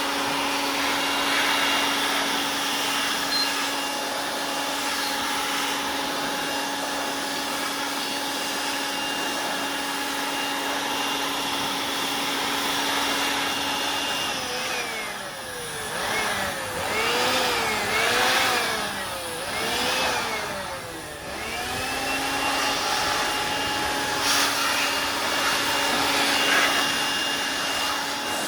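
Electric air blower running steadily as it blows dust out of a computer. Around the middle its motor pitch dips and rises back several times in quick succession, then it settles into a steady whine again.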